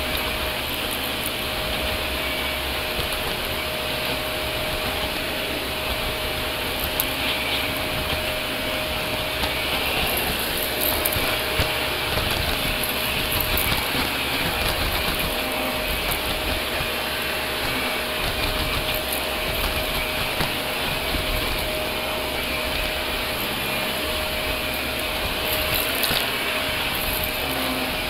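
Shark Navigator upright vacuum cleaner running on a hard floor, a steady motor whine with a constant tone, with scattered brief crackles of debris being sucked up.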